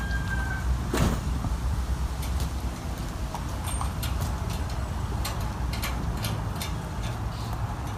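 A sharp knock about a second in, then scattered light clicks and taps from work on and around a food trailer, over a steady low rumble.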